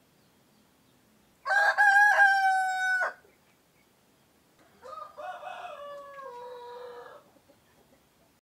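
Rooster of a laying breed (ayam pejantan) crowing twice: a loud crow about a second and a half in, lasting about a second and a half, then a quieter crow whose pitch drops toward its end.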